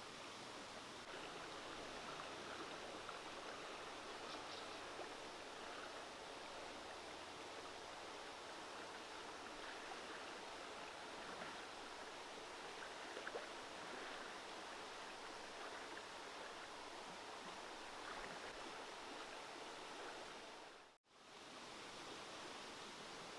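Faint, steady outdoor ambience: an even hiss with a few small rustles, dropping out for a moment near the end.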